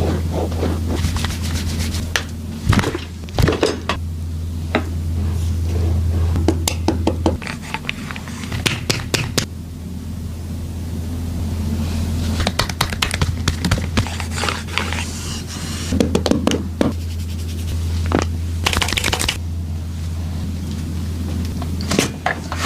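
Massage sounds: hands rubbing and scraping over skin, broken by irregular sharp slaps or clicks, over a steady low hum.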